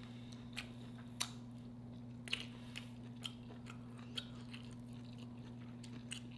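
A person chewing a mouthful of red snapper and sautéed cabbage, with scattered short wet clicks over a faint steady low hum.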